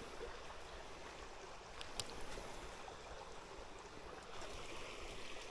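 Faint, steady rush of a small creek flowing, with a single light click about two seconds in.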